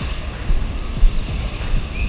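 Strong wind buffeting the microphone in uneven gusts, over the steady hiss of surf breaking on the beach.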